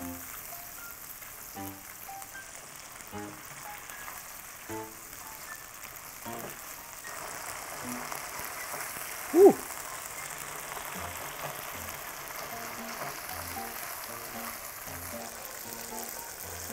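Minced pork and mapo tofu sauce sizzling in a wok as it is stirred, under soft background music. A brief sliding tone sounds once about halfway through.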